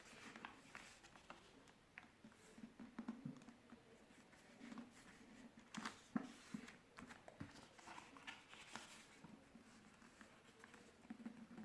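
Faint, irregular rustling, crinkling and light clicks of a sheet of paper being folded and creased by hand.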